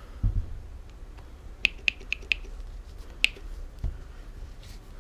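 Small metal parts or tools clinking as they are handled: four quick sharp clicks with a short ring, then one more about a second later, with a low thump near the start and another near the end.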